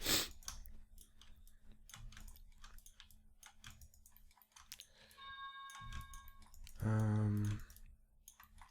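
Irregular computer mouse clicks as vertices are selected and snapped in 3D modelling software. A faint steady electronic tone is held for about a second past the middle, and a short low hum from the voice comes near the end.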